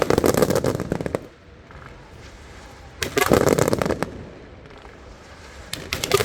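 Aerial fireworks going off in three volleys of rapid crackling pops, each lasting about a second, with quieter gaps between them.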